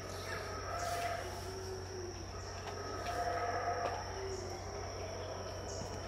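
Yucatán black howler monkeys roaring in drawn-out calls, one about a second in and a longer one from about two and a half to four seconds, over a steady high insect whine.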